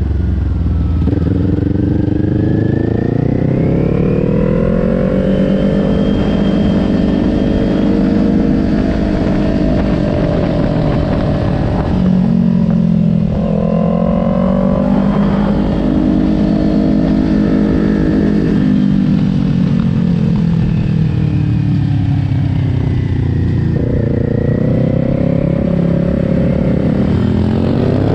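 2020 Kawasaki Ninja 400's parallel-twin engine, heard from on the bike over wind rush, its pitch climbing and falling again and again as the rider accelerates out of corners and rolls off into them. There are sudden steps in pitch about halfway through and again near the end.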